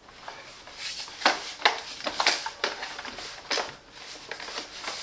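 Irregular light plastic clicks and knocks from the Grundig VCR 2330 robot vacuum's plastic body being handled and turned over, several taps a second.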